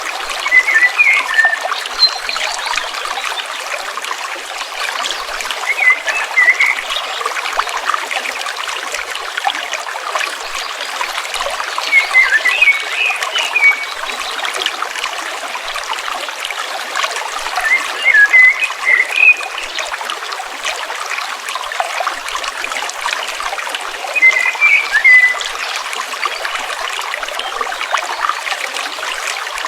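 Stream water trickling steadily, with a short chirping bird phrase that recurs about every six seconds.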